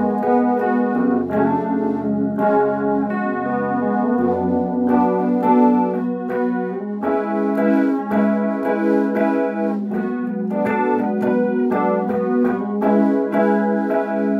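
Electric guitar in an alternate tuning (low to high Db Gb Db G B Gb) played as ringing chords and melody notes; a low bass note sounds under them for the first five seconds or so, then drops out.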